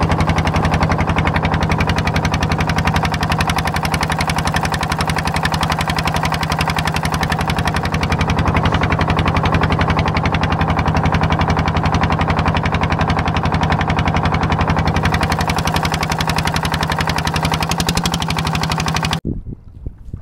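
Small fishing boat's engine running steadily with a fast, even beat, cutting off near the end.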